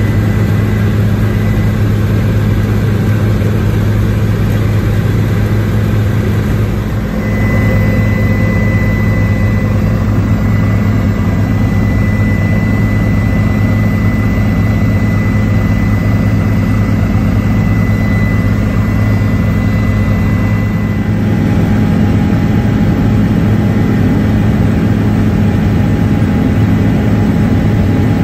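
Helicopter engine and rotor droning steadily, heard from inside the cabin, with a thin high whine over the low drone.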